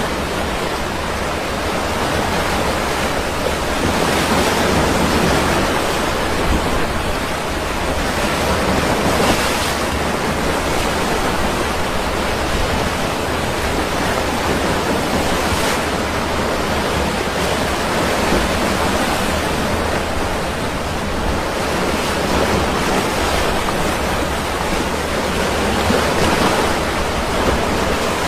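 Sea surf: a steady wash of waves, swelling louder every few seconds as waves break.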